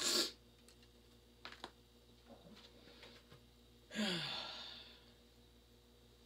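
A woman's long, audible sigh about four seconds in, her voice falling in pitch as the breath trails off. A short sharp burst of noise comes right at the start, and a couple of faint clicks follow it.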